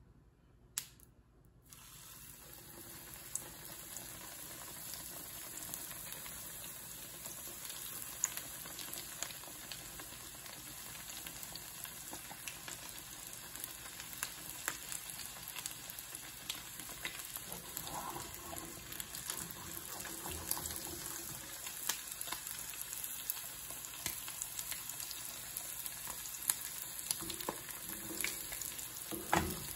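Breadcrumb-coated pork cutlet frying in a shallow pan of oil: a steady sizzle full of crackles and pops, starting about two seconds in as the cutlet goes into the hot oil. A knock near the end as the pan is handled on the stove grate.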